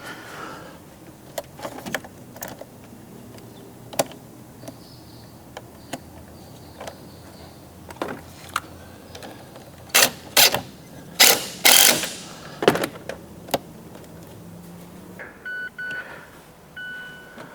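Clicks and clunks of tools and parts being handled while a car battery is reconnected, with a cluster of loud knocks about ten seconds in. Near the end, the car comes back to power and starts an electronic chime that sounds on and off.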